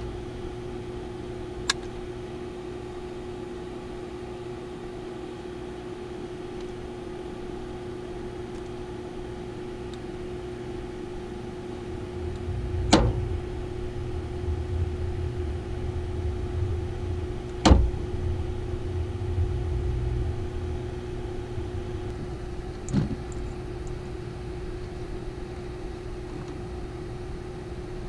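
A steady mechanical hum holding one tone, with a low rumble that swells through the middle. Four sharp knocks or clicks are spread through it, the two middle ones loudest.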